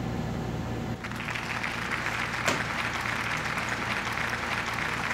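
A burst of applause starts about a second in and runs for roughly four seconds, a dense patter of claps. Under it is a steady low electrical hum.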